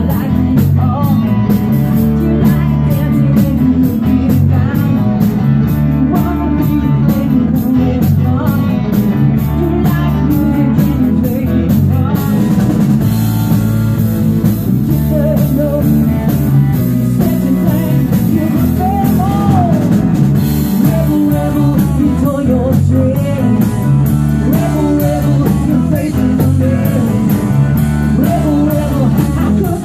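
Live rock band playing: a singer over electric guitar and a drum kit with steady cymbal beats.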